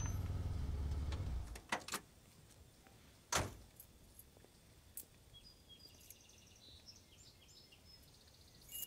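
A vintage car's engine idling, cut off about a second and a half in; a couple of light clicks, then a car door slammed shut, the loudest sound. Small birds chirp after that.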